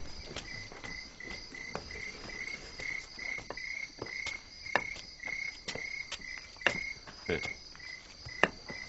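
Insects chirping in a steady pulsing rhythm, about three chirps a second, with scattered sharp clicks or knocks.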